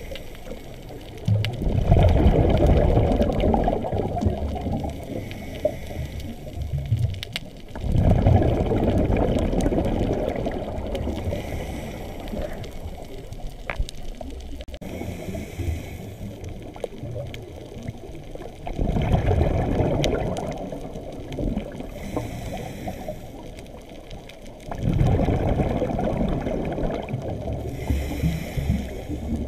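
Scuba diver breathing through a regulator underwater: four loud, low rushes of exhaled bubbles, each fading over a few seconds, with a faint hiss of inhalation between them.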